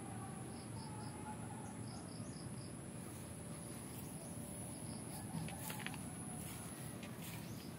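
Crickets and other insects trilling steadily at a high pitch, with a few short chirps in the first couple of seconds and faint clicks after about five seconds.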